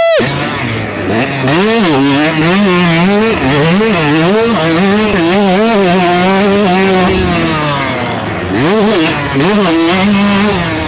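125cc two-stroke dirt bike engine revving up and down again and again as the rider rolls on and off the throttle, with short pitch drops where the throttle is chopped.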